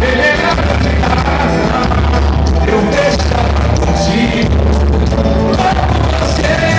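Live samba band playing with singing over a heavy bass line, at concert volume.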